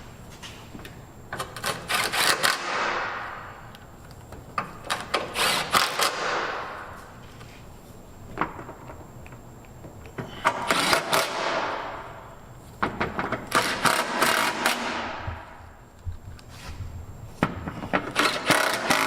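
Power tool driving in the splash shield's 12 mm bolts in five short bursts, each a rapid rattle that trails off, with pauses between bolts.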